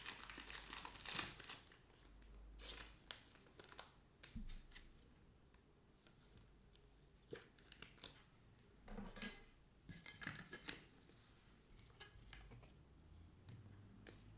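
Faint rustling and light clicks of trading cards and their plastic and foil packaging being handled.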